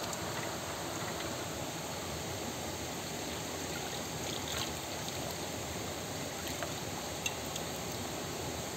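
Steady rushing of stream water, with a few faint light clicks or knocks in the second half.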